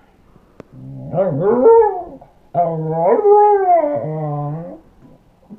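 A dog howling in two long, wavering calls, the second longer: the vocal complaint of a dog its owner calls jealous.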